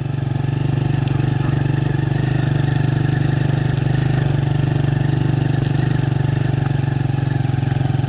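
Motorcycle engine running under way as it is ridden, picking up over the first second and then holding a steady note.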